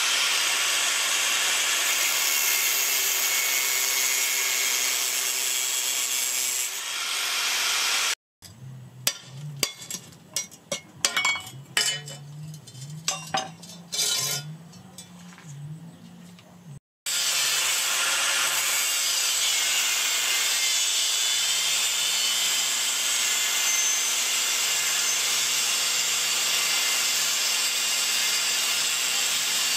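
Angle grinder with a thin cut-off disc cutting through a steel chainsaw bar, a steady high hiss. It stops about eight seconds in, giving way to scattered clicks and knocks as the bar is handled. The grinder cuts again from about seventeen seconds on.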